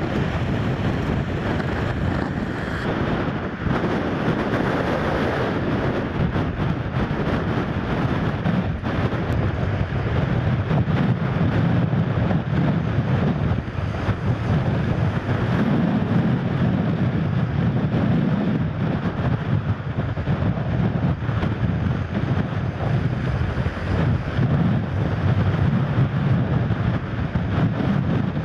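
Storm wind buffeting the microphone over the steady noise of a very rough sea.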